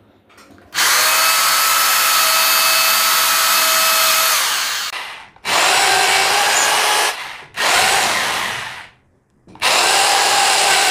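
Rotary hammer drill running in drill-only mode with a keyed-chuck adapter, boring holes into 19 mm plywood with a wood bit. It starts and stops four times: one run of about four seconds, then three shorter runs.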